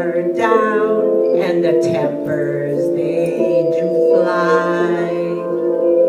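A performer singing into a microphone over a recorded instrumental backing track, the accompaniment holding steady chords under the voice.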